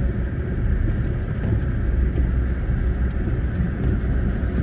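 Strong blizzard wind buffeting the microphone: a steady low rumble with a hiss of wind-driven snow above it.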